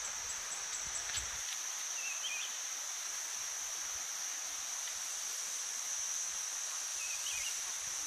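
Steady high-pitched insect drone over an even rushing hiss of falling water, with two short chirps, about two seconds in and again about seven seconds in.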